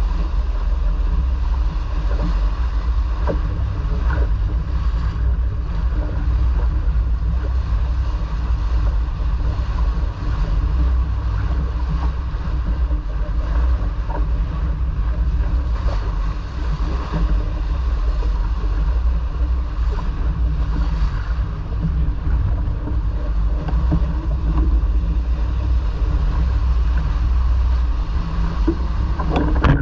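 Wind buffeting the microphone and water rushing along a sailboat's hull under way: a steady deep rumble with a hiss above it and a few faint knocks.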